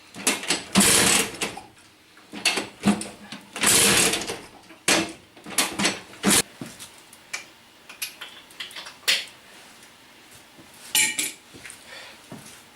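Vyatka Elektron scooter's two-stroke engine being kicked over with the kick-starter, several strokes in the first half without it running. Quieter clicks and handling follow.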